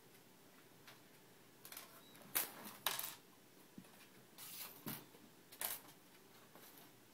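Small loose objects in a desk drawer rattling and clicking against the drawer bottom as a cat bats them with its paw: about five short, sharp rattles, the loudest about two and a half and three seconds in.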